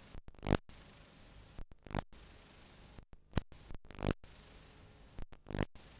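Playback noise from a blank stretch of analog videotape: a steady hiss broken about once a second by brief dropouts and scratchy crackling bursts.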